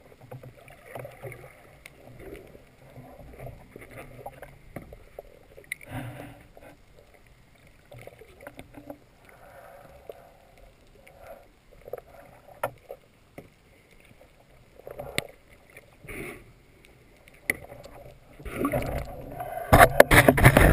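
Muffled underwater water noise with scattered soft swishes and knocks from a diver moving with a speargun. About a second before the end it turns into loud splashing as the diver breaks the surface.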